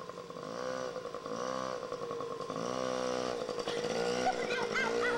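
Small child's mini dirt bike engine revving up and down in short swells, several times, as it is ridden, over a steady engine drone. A child's voice calls out near the end.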